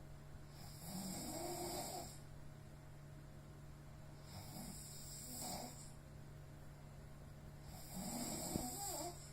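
A sleeping person snoring: three snores, each about a second and a half long, coming roughly every three and a half seconds.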